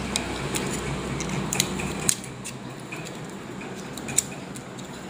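Hands handling small items at a steel mixer-grinder jar: scattered light clicks and ticks over a steady hiss. A low hum stops about two seconds in.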